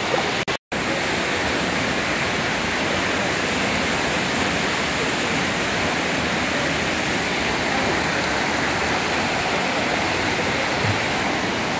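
Waterfall rushing steadily, a dense even roar of falling water. The sound drops out for an instant about half a second in.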